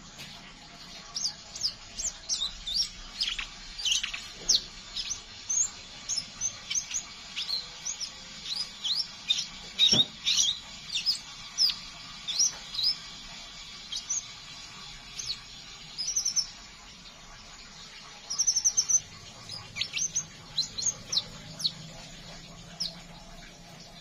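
Male crimson sunbird chattering in rapid, irregular series of short, thin, high chirps, pausing briefly before a quick burst near the end. One louder chirp about ten seconds in comes with a knock.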